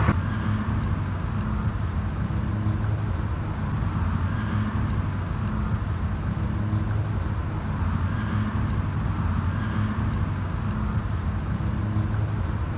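A steady low motor hum with a constant drone, overlaid by a faint rushing noise that swells and fades every few seconds.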